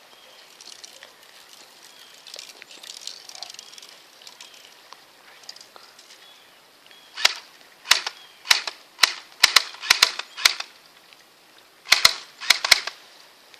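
Airsoft MP5 firing single shots: a string of sharp cracks at uneven spacing starting about halfway through, then a pause and a quick group of four near the end.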